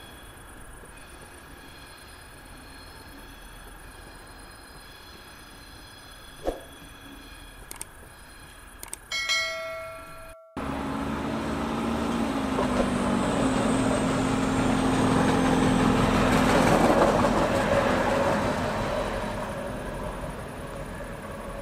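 A DB Class 612 diesel multiple unit passing close by, its diesel engine running under the noise of the train, which swells to a peak and then fades. Before it comes a faint distant rail-yard background with a single knock and, about nine seconds in, a brief ringing tone.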